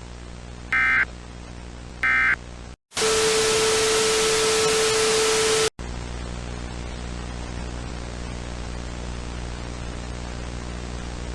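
Two short bursts of EAS digital data tones about a second apart: the end-of-message code closing the alert. After a brief drop-out comes about three seconds of loud static with a steady low tone through it. It cuts off suddenly to a quieter, steady hiss with hum.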